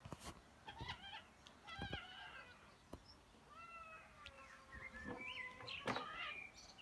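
Cat meowing: short meows early on, then a long drawn-out meow through the second half, with a few sharp clicks in between.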